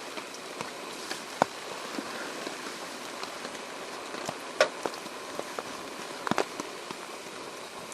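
Steady rain falling on a tarp shelter: an even hiss with scattered sharper drop hits, a few louder ones about a second and a half, four and a half and six seconds in.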